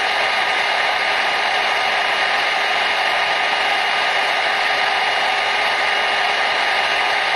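Hair dryer running continuously: a steady, even rushing of air with a faint motor whine, used as white noise to lull a baby to sleep.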